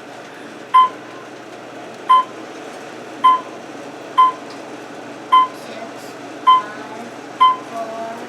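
Elevator beeping: seven short, identical electronic beeps, about one a second, over the steady hum of the car.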